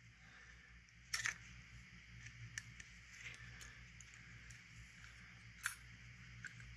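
Faint clicks and light taps of small metal parts being picked up and handled on a workbench; the sharpest click comes about a second in, another just before six seconds.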